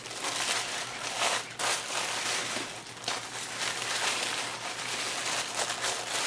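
Plastic packaging crinkling and rustling in irregular crackly strokes as a package is handled and opened.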